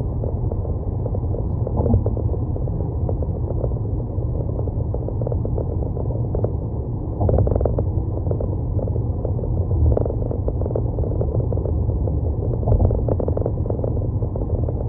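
Steady low rumble of a car driving on city roads, tyre and engine noise with small knocks over it, briefly louder about seven seconds in.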